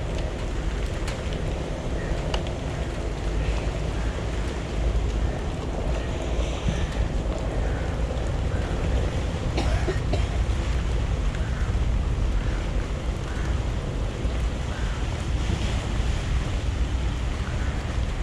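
Wind buffeting the microphone as a steady low rumble, over a wash of open water, with a few faint clicks.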